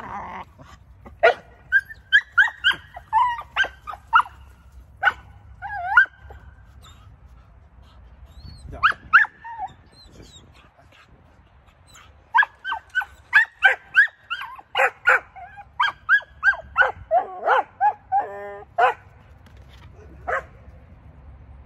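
Young Belgian Malinois puppy barking and yipping in quick excited bursts, in clusters with short pauses between them.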